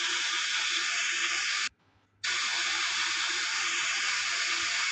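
A steady hiss, like running water or steam, that cuts out for about half a second a little under two seconds in, then resumes.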